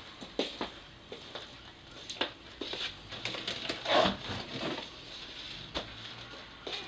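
Handling noise: scattered light knocks and rustling, with a louder knock and rustle about four seconds in as a hard-shell guitar case is grabbed and lifted.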